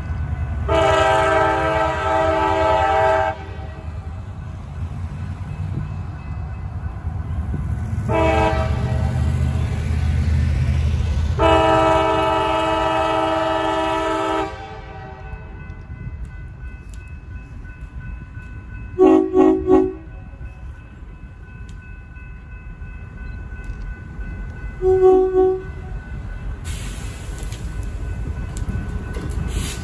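Diesel freight locomotive's air horn sounding a long blast, a short one and another long one for a grade crossing, over the low rumble of the approaching locomotives. Later come a few quick taps of the horn.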